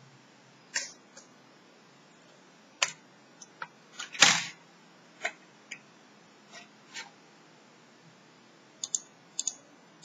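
Scattered clicks and taps from handling a Lenovo Y450 laptop keyboard and its ribbon cable connector. The loudest is a longer noise just after four seconds in, and a quick run of four clicks comes near the end.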